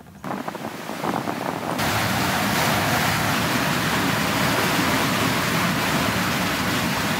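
Steady rush of wind and water streaming past a sailboat under tow, building up over the first two seconds.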